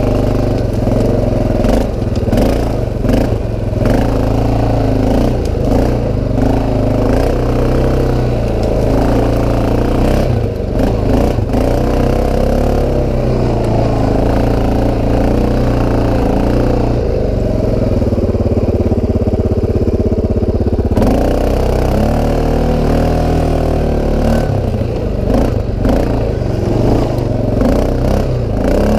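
CFMOTO 500 ATV's single-cylinder engine running, revs rising and falling as it is ridden, with scattered knocks and clatter from the machine.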